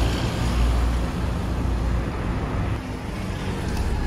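Car and road traffic noise heard from inside a car: a steady low rumble of engine and tyres.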